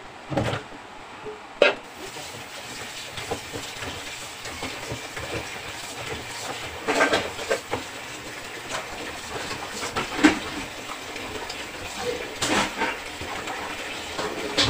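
Kitchen tap turned on about two seconds in, running steadily into a sink while raw chicken pieces are rinsed by hand. A few knocks and clatters come from a stainless-steel bowl being handled, the loudest about halfway through and near the end.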